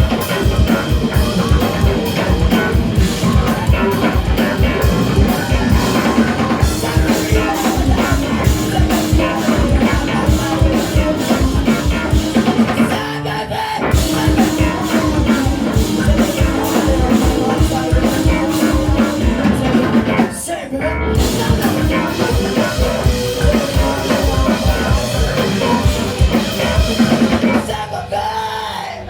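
Live rock band playing an instrumental stretch with a driving drum kit, bass and guitar. It has two short breaks partway through and winds down near the end.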